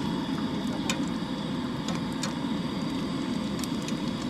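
Daing (dried fish) frying in a pan: a steady low rushing hiss with scattered small pops.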